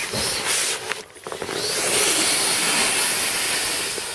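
Air hissing out of the open deflation valve of an Exped SynMat UL 7 inflatable sleeping pad as it is rolled up tight to squeeze the air out, with the pad's fabric rubbing. The rush of air strengthens just after a second in, rising in pitch, and tapers off near the end.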